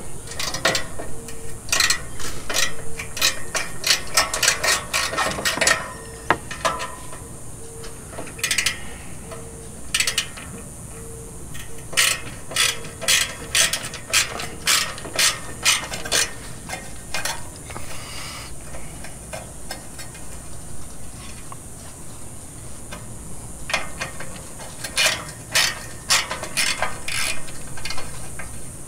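Hand socket ratchet clicking as it is swung back and forth on a bracket bolt, in several runs of about two clicks a second with pauses between.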